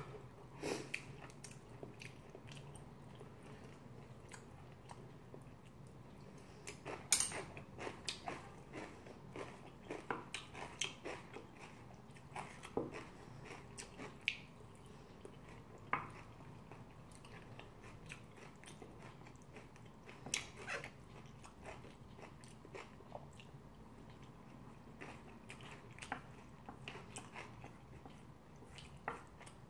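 Close-miked chewing and mouth sounds of someone eating seafood curry rice and kimchi: faint, with scattered short sharp clicks and smacks, a louder one about 7 seconds in.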